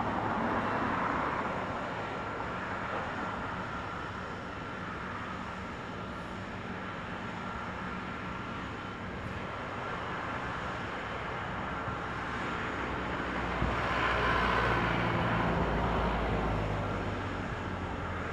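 Aircraft engines heard at a distance: a steady rumble and hiss with a faint whine, swelling louder with more low rumble for a few seconds about three-quarters of the way through.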